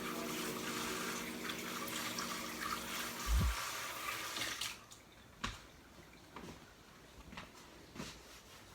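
Kitchen sink tap running water while hands are washed, with a dull thump about three and a half seconds in; the tap is shut off about a second later, leaving a few light knocks and clicks.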